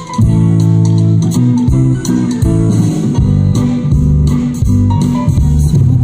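Live band playing an instrumental passage without vocals: electric bass guitar lines to the fore, with electric guitar and drums.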